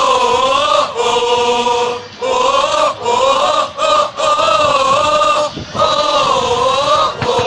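A section of football supporters, mostly men, singing a terrace chant together in unison at full voice, in short repeated phrases with brief breaks between them.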